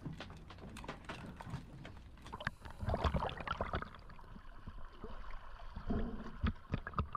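Open-ocean water splashing and sloshing right at the microphone while a spearfisher swims at the surface, in irregular bursts that grow louder about three seconds in and again near the end.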